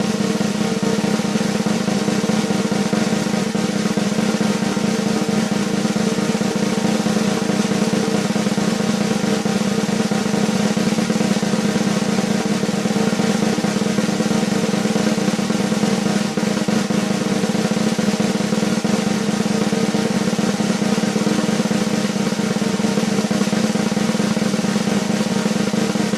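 Continuous snare drum roll, held at an even level throughout with no build or final hit.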